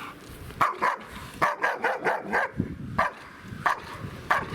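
German Shepherd barking repeatedly in short, sharp barks, some coming in quick runs.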